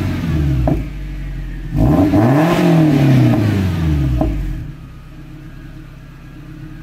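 1996 Nissan 240SX S14's KA24DE four-cylinder revved through an Apexi dual N1 exhaust. A rev falls away with a sharp pop, a second throttle blip rises and falls with another pop as it drops, and the engine settles to a steady idle.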